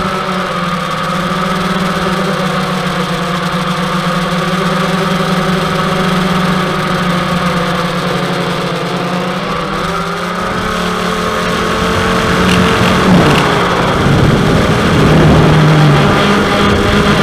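Multirotor drone's motors and propellers buzzing steadily, the pitch dipping and then rising about ten seconds in as it manoeuvres, and growing louder and rougher over the last few seconds.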